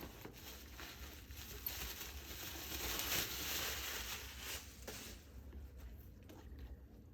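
Rustling and handling noise from a soft camera bag being opened and rummaged through, with a few light clicks; it swells in the middle and dies down about five seconds in.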